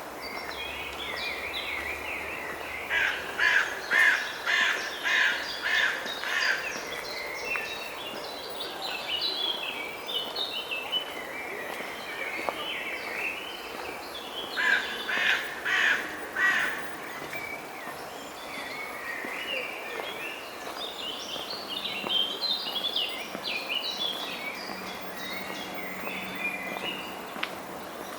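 A crow cawing in evenly spaced calls, about two a second: a run of about eight a few seconds in and a shorter run about halfway through. Small songbirds chirp and twitter throughout.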